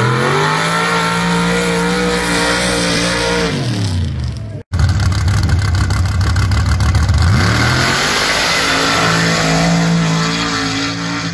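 Two sand-drag runs by modified Jeeps on paddle tires. First an engine revs up sharply and holds at full throttle for about three seconds, then falls away. After an abrupt cut, a second engine rumbles loudly at the line, then revs up about two-thirds of the way through and holds at full throttle.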